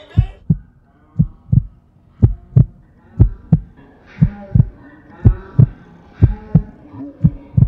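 Heartbeat sound effect: a steady lub-dub double thump about once a second, eight beats in all.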